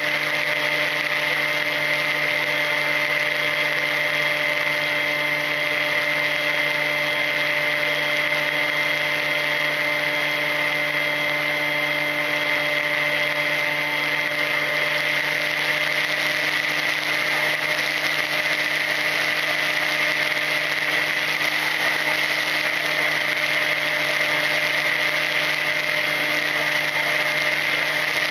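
Electric motor and propeller of a Volantex Ranger EX FPV plane running at a steady cruise, an even whine that holds one pitch, heard from the plane's onboard camera with a rush of air noise.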